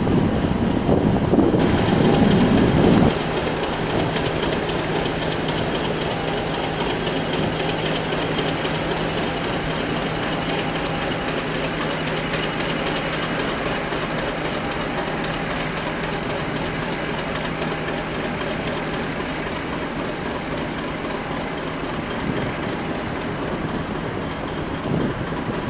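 Diesel locomotives running on the line with wheels clattering over the rail joints. A loud, deep engine rumble in the first three seconds drops suddenly to a steady hum with track noise.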